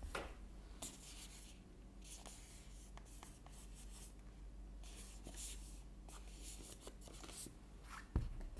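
Hands handling a Samsung Galaxy Buds2 cardboard retail box: fingers rubbing and sliding over its surface with small taps and clicks, then a knock as the box is set down on the table near the end.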